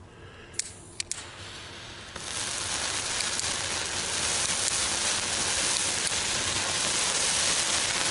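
Indoor silver spark fountains in a homemade five-fountain fan being lit: after two short clicks, a steady spraying hiss starts about two seconds in and grows louder as more fountains catch.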